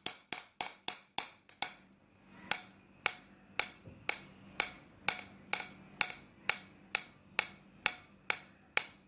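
A regular series of sharp clicks, about four a second at first, then after a short break about two seconds in, slowing to about two a second.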